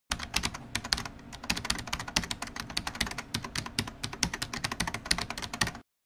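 Fast typing on a computer keyboard: a dense, irregular run of key clicks that stops suddenly just before the end.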